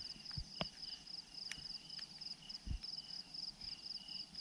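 Insects trilling steadily in a high, fast-pulsed chorus, with a second, lower chirp coming and going. A few soft knocks, the loudest a thump a little over halfway through.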